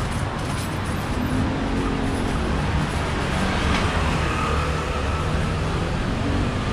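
Busy city street ambience: a steady wash of road traffic noise, with a short click a little under four seconds in.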